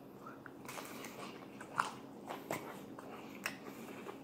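Close-miked chewing of battered, deep-fried fish and chicken: wet mouth sounds with a scatter of short, sharp crunches and clicks, a few louder ones about two seconds in and near the end.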